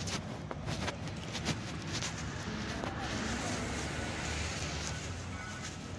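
City street ambience: steady traffic rumble from the road alongside, with faint voices of passers-by and a few scattered ticks and knocks.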